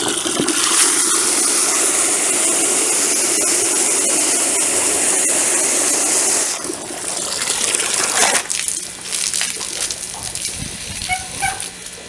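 Water from a hose gushing into a bucket of sand while a hand churns it, washing the dirt out of the sand. The steady gush stops about six and a half seconds in, giving way to quieter sloshing and splashing.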